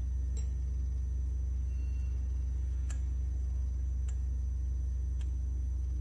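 A steady low electrical hum, with a few faint, sparse clicks as a drinking glass is picked up and tilted on a stone counter.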